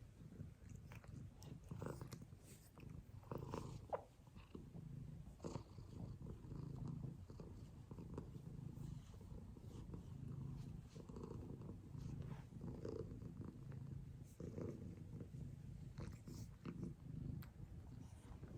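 A domestic cat purring steadily in a low, continuous rumble that swells and eases every second or so, with a few faint clicks.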